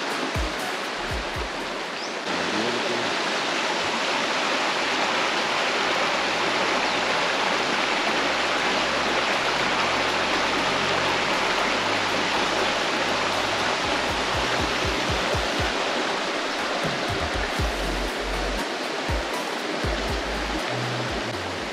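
Rushing river water, a steady dense hiss of flowing current, slightly quieter for the first two seconds. Background music with a low bass line plays underneath.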